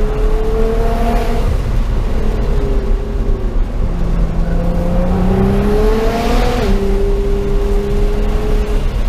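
Nissan GT-R's twin-turbo V6 heard from inside the cabin over a steady low road rumble, its engine note rising and falling. About four seconds in, the pitch climbs for over two seconds, then drops suddenly.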